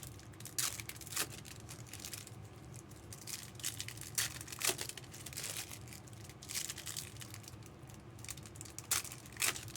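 Trading card packs and cards being handled: a string of short, irregular crinkles and rustles of foil wrappers and card stock, with a few sharper ones standing out.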